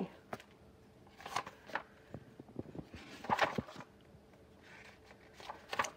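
Paper rustling as the pages of a picture book are handled and turned, in a few short bursts: about a second in, around three seconds in, and near the end.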